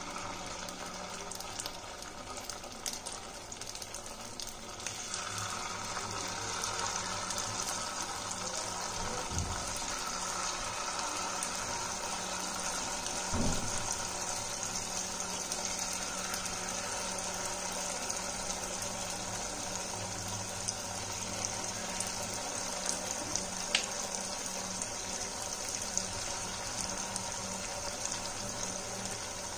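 Batter-coated potato pieces deep-frying in hot oil: a steady sizzle full of fine crackles that grows louder about five seconds in. There is one dull knock about halfway through.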